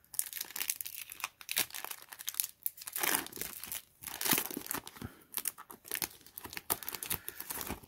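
Foil Yu-Gi-Oh! booster pack wrapper being torn open and crinkled by hand, a dense run of crackling rustles and tears.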